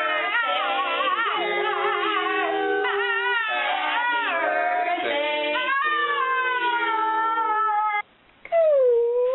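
A dog howling and warbling along with held piano notes, its pitch wobbling up and down over the steady notes. After a short break near the end, a single long dog howl begins, dipping in pitch and then holding.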